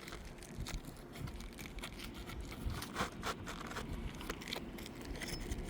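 Asphalt roof shingles being lifted and handled, giving irregular crackling and scraping with scattered sharp clicks, the loudest about three seconds in.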